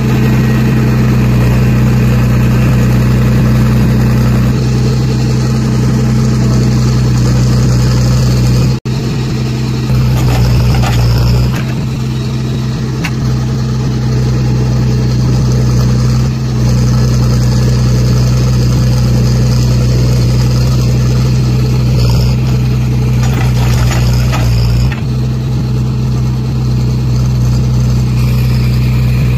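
Backhoe loader's diesel engine running steadily under load while the backhoe digs soil. The sound cuts out for an instant about nine seconds in.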